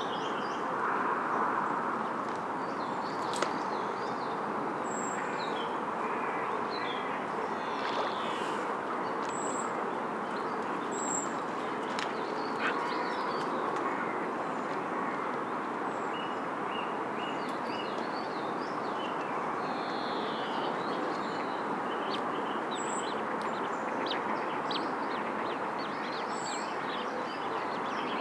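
Birds chirping and calling, with many short, high chirps scattered throughout, over a steady background hiss.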